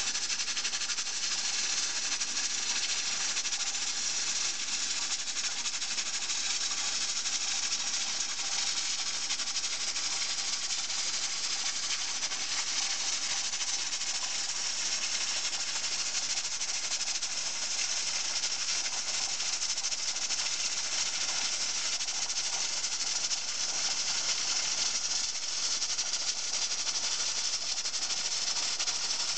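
Stovetop pressure cooker's weighted regulator cap spinning on the vent pipe as steam escapes, a steady hissing rattle that shows the cooker is at pressure.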